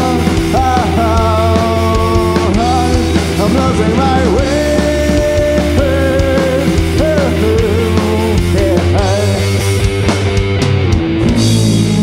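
Rock band playing live: drums, electric bass and electric guitar, with a sustained lead line that bends and slides in pitch. Near the end the drums stop after a few hits and a low note is held.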